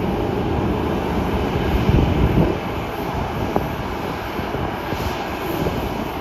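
Boeing 737 jet engines running at taxi power: a steady low rumble with a jet hiss, swelling briefly about two seconds in.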